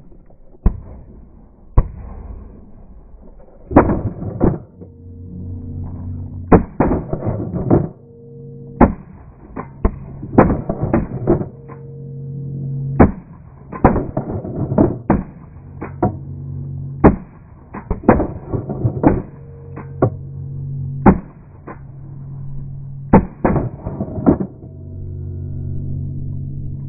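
Shotguns firing again and again at a flock of geese, shots often coming in quick clusters of two to four from several guns, with a steady low hum underneath.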